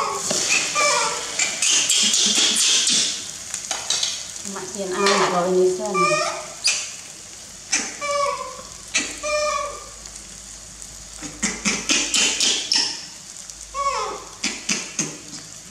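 Egg-dipped bread sizzling in hot oil in a frying pan, loudest in the first few seconds while a spatula turns it. Short high voice sounds that rise and fall break in over the frying throughout.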